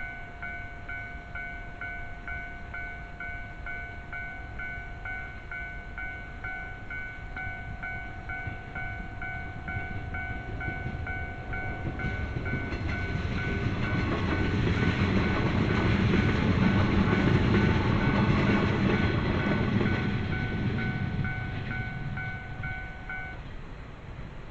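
Japanese railway level-crossing warning bell ringing in a rapid, evenly repeating electronic ding. A train approaches about halfway through, passes loudly, then fades, and the bell stops just after the train has cleared, near the end.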